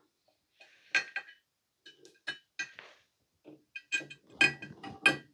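A scattered run of small metallic clinks and taps, densest near the end, as the CRT discharge probe and its ground clip lead are handled and set down on the bench.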